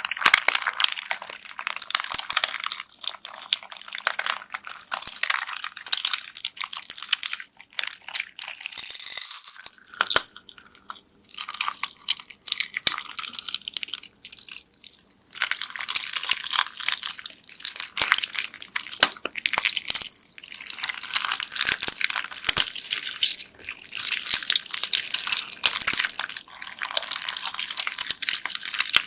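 Bead-filled slime squeezed and pressed by hand: a dense run of small crackles, clicks and wet pops as the plastic beads shift and the slime stretches, easing off for a few seconds midway before picking up again.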